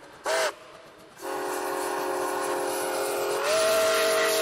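Freight locomotive's multi-chime air horn: a short toot, then a long blast starting just over a second in, its chord stepping up in pitch about three and a half seconds in.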